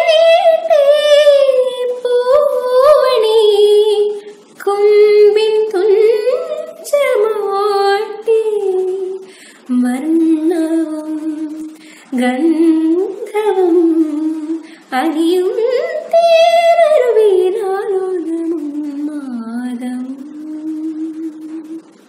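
A woman singing solo and unaccompanied, a slow, ornamented melody in phrases of a few seconds with short breath pauses between them.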